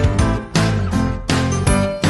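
Background music with a steady beat, heavy bass and bright, chiming notes.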